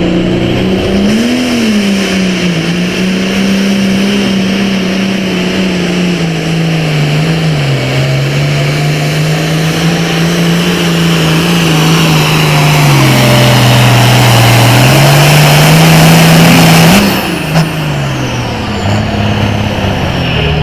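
Turbocharged diesel super farm pulling tractor running hard at full throttle under load, its pitch dipping and recovering as it pulls the sled. About three-quarters of the way through the throttle comes off and the engine winds down, with a high whine falling away.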